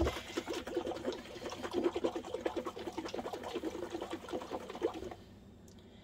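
A lidded glass pint jar of water and dehydrated vegetable powder being shaken hard, the liquid sloshing in quick, even strokes as the powder is mixed into the water to make vegetable stock. The shaking stops about five seconds in.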